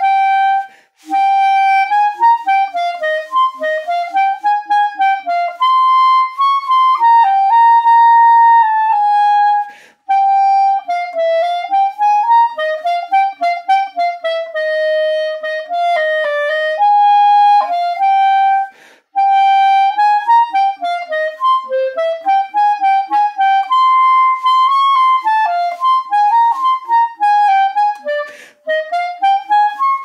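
Backun Alpha plastic clarinet, fitted with a solid wood barrel and bell, playing a solo melodic passage in steady phrases with a few short breaks for breath.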